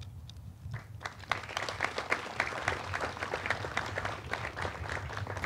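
Audience applauding: many hands clapping in a dense patter that starts about a second in and builds.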